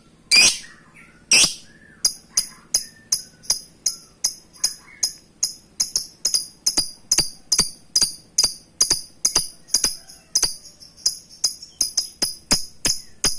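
Lovebird's long chattering call ('ngekek panjang'): two loud shrieks, then a long run of sharp, high chirps repeated evenly at about two to three a second.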